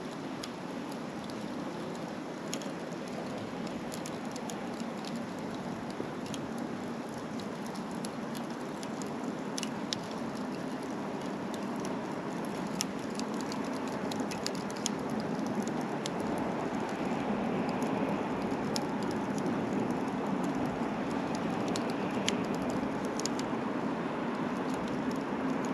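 Small wood fire burning in a compact B6-size fire grill: a steady hiss with scattered sharp crackles and pops, slowly growing louder.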